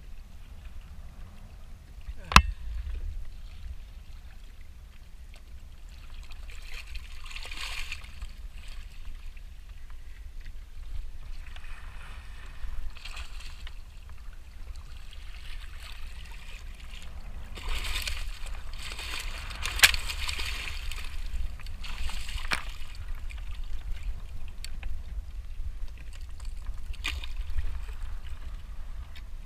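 Hooked cobia thrashing and splashing at the surface beside a kayak, in several bursts of splashing, the biggest cluster about two-thirds of the way through. A single sharp knock about two seconds in is the loudest sound.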